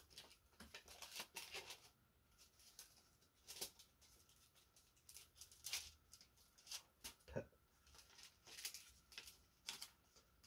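Faint, scattered rustling and crinkling of paper with a few small clicks: hands handling a paper CD sleeve at close range.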